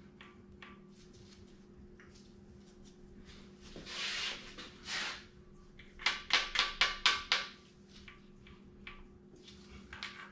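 Hand work on a bare engine block during a bottom-end rebuild: two soft rustling swells, then a quick run of about ten sharp clicks in a second and a half as parts are worked onto the crankshaft, over a steady low hum.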